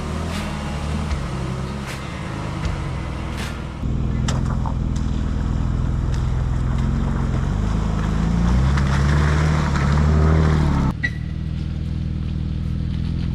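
A 2005 Jeep Liberty's engine running as it crawls a rough off-road trail, with scattered clicks and knocks in the first few seconds. The engine gets louder about four seconds in, rises in pitch and level past the middle, then drops back abruptly near the end.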